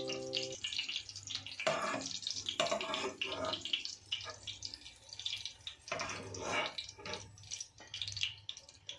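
Hot oil sizzling and crackling in a kadai as half-fried bell pepper strips are lifted out with a slotted spoon.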